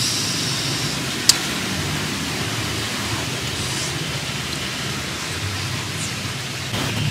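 Steady outdoor hiss with no clear tone, and a single sharp click about a second and a half in.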